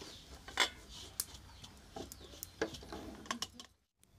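Scattered light clinks and knocks of metal dishes and utensils being handled, a few seconds apart, cutting off to a brief silence near the end.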